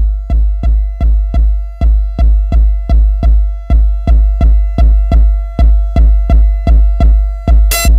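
Electronic dance track in a stripped-down stretch: a drum-machine kick drum thumping a steady beat, a little over two a second, under a held synth tone. The busier high percussion and synth layers come back in near the end.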